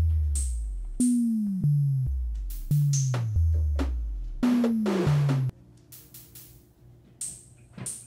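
Electronic background music: deep bass-drum hits that drop in pitch, about one and a half a second, with snare and cymbal hits on top. The bass line stops abruptly about five and a half seconds in, leaving a quieter stretch with a few sparse hits.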